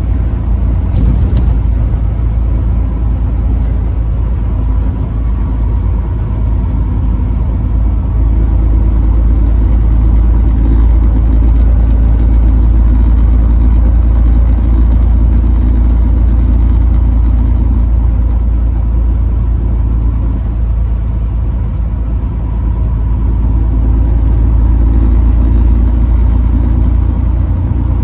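Truck engine and road noise while driving: a loud, steady low rumble that holds with only small rises and dips in level.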